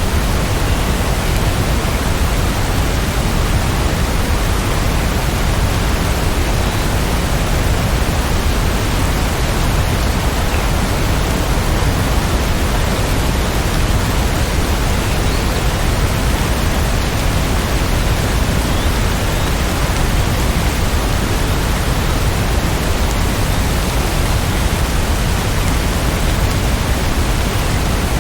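Steady, even hiss of heavy rain, with no separate drops, thunder or other sounds standing out.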